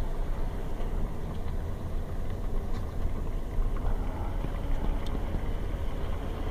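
Steady low rumble and hiss inside a car's cabin as it creeps through traffic in heavy rain: engine and wet-road noise with rain on the car, and a couple of faint ticks.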